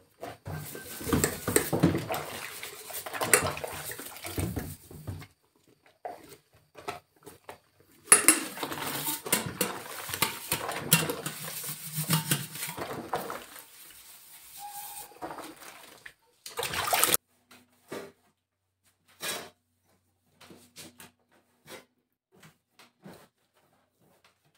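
Dishes being washed by hand in a stainless steel sink: scrubbing, clinking of crockery and pots, and water splashing, in two long stretches. After these come a short loud clatter and a few scattered knocks.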